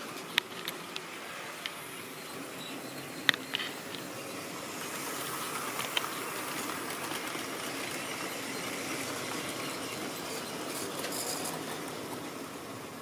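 Tri-ang model trains running past on the track: a steady rumble of wheels on the rails, broken by a few sharp clicks in the first half. It grows louder from about five seconds in, as the diesel locomotive and its freight wagons pass close by.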